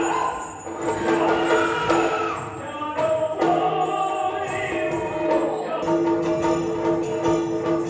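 Yakshagana performance music: singing over a steady drone, with jingling bells.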